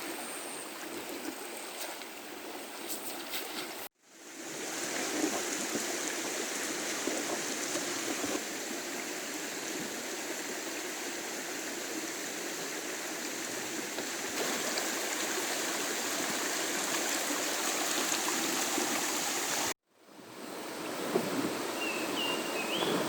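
River water flowing and rushing steadily over shallows, louder in the middle stretch. The sound cuts out abruptly twice, about four seconds in and again near the end.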